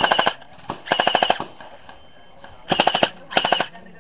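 Battery-powered gel blaster firing full auto in short bursts, each a rapid rattle of shots over a steady high whine. The tail of one burst ends at the start, another burst comes about a second in, and two quick bursts come near three seconds.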